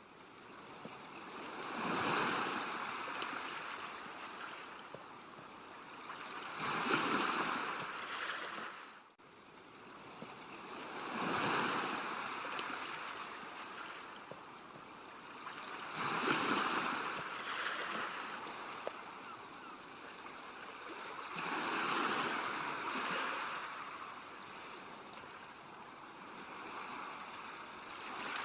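Sea waves washing onto a shore, five swells, each rising and falling away about every five seconds, with a brief dropout about nine seconds in.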